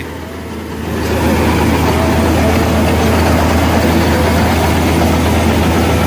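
Combine harvester running while cutting wheat: a steady low engine hum under a dense rushing rattle of the cutter and threshing, growing louder about a second in.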